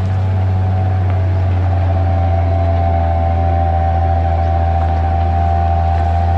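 Diesel engine of a loaded Isuzu Deca 320 sugarcane truck and trailer running steadily as it passes close by. It is a strong, constant low drone, and a higher steady tone grows louder about a second and a half in.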